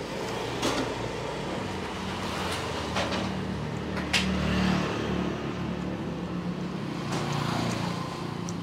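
A motor vehicle's engine running, its low hum swelling around the middle and again later, with a few sharp clicks.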